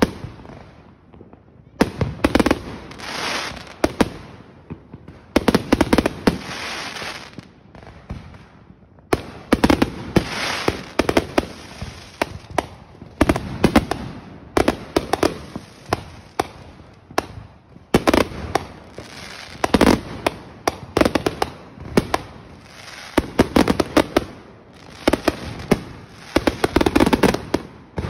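Aerial fireworks going off in quick succession: sharp bangs, each cluster followed by a long crackling tail, with loud peaks every couple of seconds throughout.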